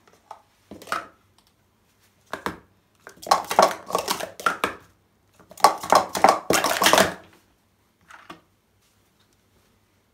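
Plastic Speed Stacks sport-stacking cups being stacked up and down fast on a stacking mat, clattering in several quick bursts of rapid clicks over about seven seconds.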